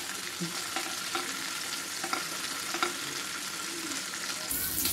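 Chicken pieces shallow-frying in hot oil in a nonstick pan over high heat, sizzling steadily, with a few light taps and scrapes of a slotted spatula turning them.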